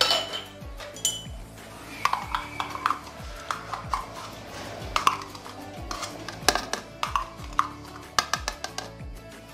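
Scattered sharp clinks and knocks of utensils against kitchen dishes, several with a brief ring, over background music with a steady low beat.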